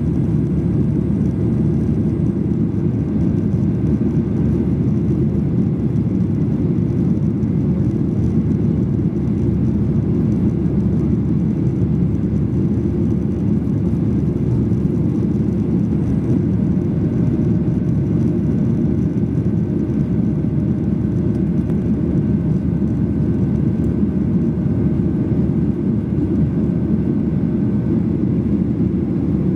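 Steady cabin noise of a Boeing 737-800 climbing after takeoff, heard from a window seat over the wing: its CFM56-7B engines and the air rushing past make a deep, even drone.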